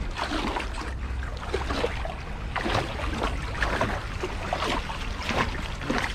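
Shallow water sloshing and splashing in short, irregular bursts as people wade through it, over a steady low rumble.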